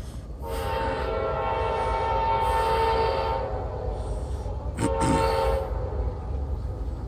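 CSX freight locomotive's air horn sounding a chord of several steady notes: one long blast of about three and a half seconds, a short blast about a second later, then another long blast starting near the end.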